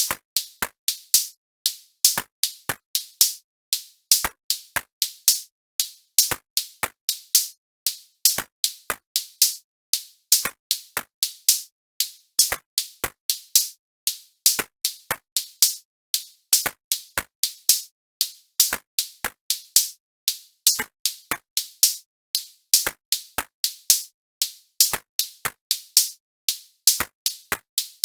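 Background music: a drum-machine beat of sharp, crisp hits in a fast, even repeating pattern, with little bass.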